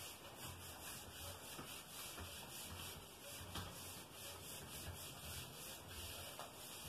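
Whiteboard eraser wiping marker writing off a whiteboard: faint, repeated rubbing strokes as it is swept back and forth across the board.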